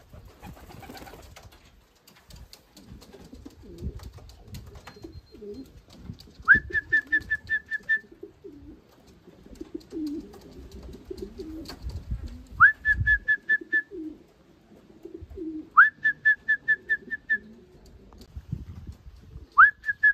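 Pigeons cooing in a low, wavering murmur, while a whistle call sounds four times: a quick rising note followed by a rapid run of short, even pips. The whistle is the kind a fancier uses to call homing racing pigeons down to the loft.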